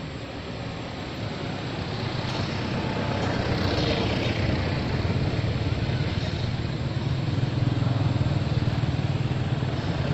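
A motor vehicle's engine running, getting louder over the first few seconds and then holding steady.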